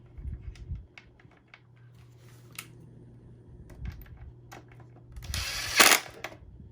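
Scattered small clicks and knocks of plastic vacuum parts and screws being handled as the housing is put back together, with one short, loud rasping noise about five seconds in.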